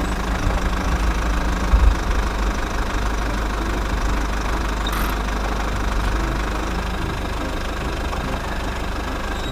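Engine running steadily with a low rumble, the sound of a working excavator.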